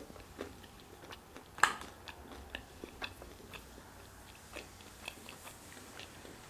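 A person chewing food close to the microphone: soft, scattered mouth clicks and smacks, with one louder smack about a second and a half in.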